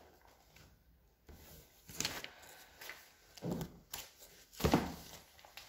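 Quiet room with a few brief rustles and knocks, about two, three and a half and nearly five seconds in; the last is the loudest.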